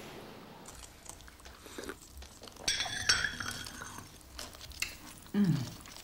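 Light clinks and taps of a china teacup and saucer on a table, with a short, higher-pitched burst about three seconds in and a brief low vocal sound falling in pitch near the end.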